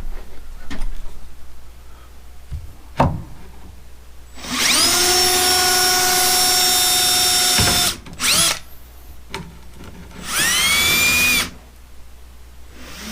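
Power drill boring a hole into the porch beam for a swing anchor bolt: the motor spins up and holds steady for about three seconds, gives a short blip, then runs again for just over a second. A couple of sharp knocks come before the drilling.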